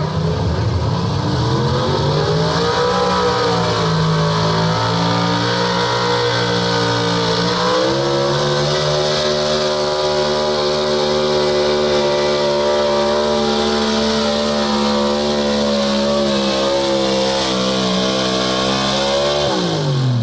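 Pro Stock 4x4 pulling truck's engine at full throttle under load while it drags the sled. The pitch climbs and wavers over the first several seconds, then holds high and steady for about ten seconds. It drops away sharply near the end as the throttle is let off at the end of the pull.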